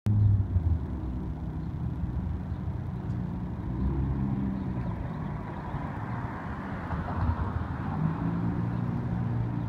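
Road traffic on a city street: car engines and tyre noise, with a car passing closer about six to seven seconds in.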